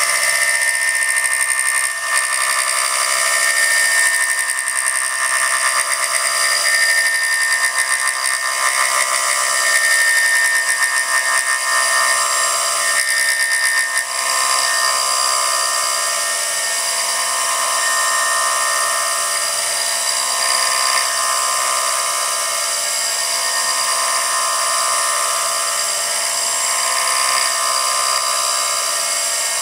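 CNC mill spindle running at high speed as a home-made thread mill cuts an M6 thread, giving a steady high-pitched whine with cutting noise. From about halfway through, the cutting sound swells and fades about every three and a half seconds.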